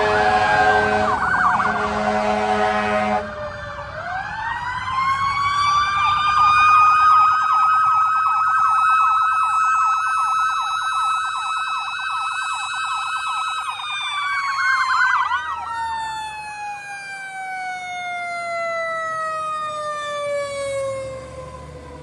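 Fire apparatus sounding an air horn for the first few seconds while a siren's pitch falls. Then a mechanical siren winds up quickly to a steady high wail, holds it for about ten seconds, and winds slowly back down as the rotor coasts.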